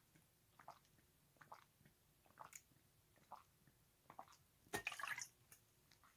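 Near silence broken by a few faint, short wet clicks, with a brief louder cluster of them about five seconds in.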